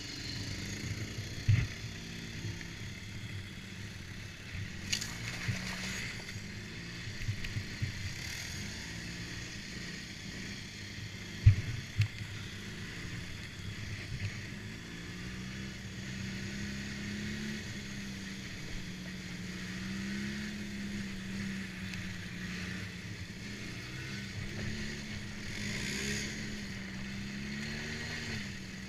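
ATV engine running while being ridden, its pitch drifting up and down with the throttle. A sharp knock comes near the start and a louder one a little before halfway.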